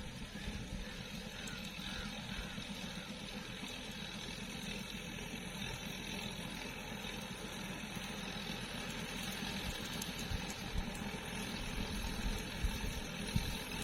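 Farmtrac 65 tractor's diesel engine running steadily.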